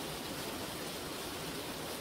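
Small waterfall over a low creek weir: a steady rush of falling water, an even hiss without breaks.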